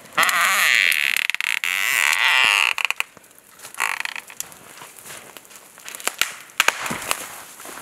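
A dead wooden pole scraping against tree bark as it is dragged between two trunks: a long scrape for about two and a half seconds, then a shorter one about a second later. After that come scattered crackles and crunches in the snow.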